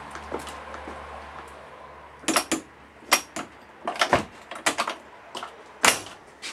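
A series of sharp knocks and clicks, about eight in three and a half seconds starting about two seconds in, the loudest near the end. Under them a low hum fades out.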